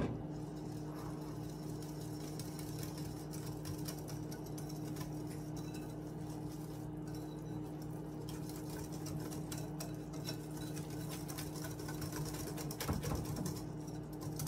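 Wire whisk beating pancake batter in a ceramic bowl, mixing the dry flour mixture into the wet ingredients: a quick, steady run of light ticks and scrapes against the bowl, over a steady low hum.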